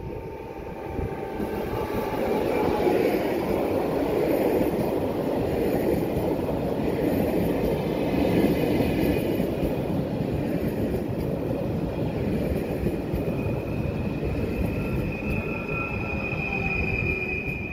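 PKP Intercity ED160 (Stadler FLIRT) electric multiple unit passing on the rails. The rolling rumble of the train builds up about two seconds in and then stays steady. A high, steady wheel squeal grows near the end.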